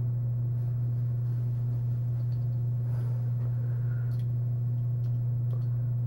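A steady low hum with a few faint clicks.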